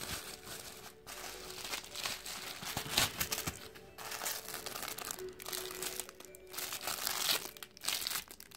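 Bubble-wrap and plastic packaging crinkling and rustling as it is handled, in irregular stretches with a few sharper crackles, while a phone case in its plastic bag is pulled out of a bubble-wrap sleeve.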